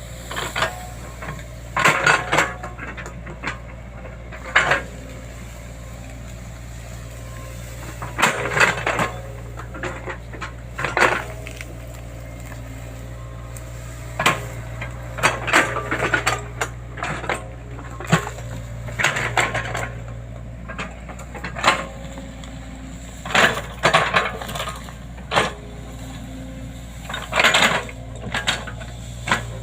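Excavator engine running at a steady low hum, with irregular sharp metallic clanks and rattles from the machine every second or few.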